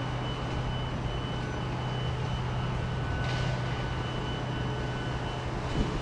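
Class 158 diesel multiple unit's engines running with a steady low drone as it approaches slowly over the points. There is a brief hiss about halfway through.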